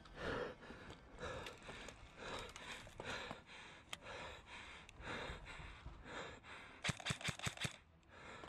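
An airsoft player's heavy, rhythmic breathing, about one breath a second. Near the end comes a rapid string of about eight sharp clicks, the loudest sound here.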